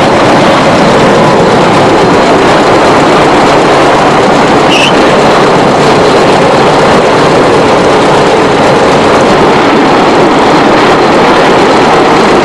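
Small narrow-gauge train running along the track, heard from on board as a steady, loud running noise. There is a brief high squeak about five seconds in.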